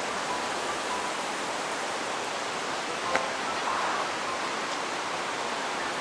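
Steady rush of a mountain stream, an even hiss of water, with a faint click about three seconds in.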